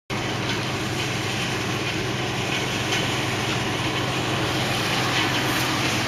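International 1480 combine harvester running steadily while threshing soybeans, a constant low engine hum under an even wash of machine noise.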